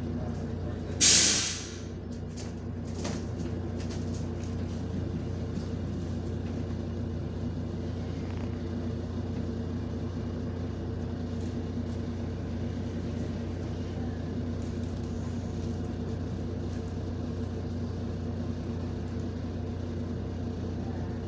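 Interior of a MAZ-105 articulated city bus under way: a steady drone of the engine and road noise. About a second in, a short, loud burst of compressed-air hiss from the bus's air system, the loudest sound here.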